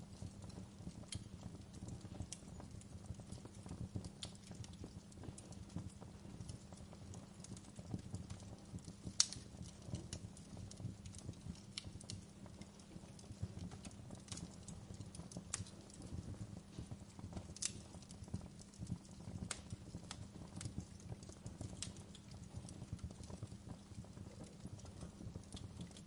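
Wood fire crackling: irregular sharp pops and snaps over a low steady rumble, with one louder pop about nine seconds in.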